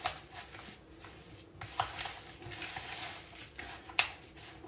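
A spoon stirring a crumb-crust mixture of crumbs, sugar and melted butter in a plastic bowl: soft scraping with a few sharp clicks of the spoon against the bowl, the loudest near the end.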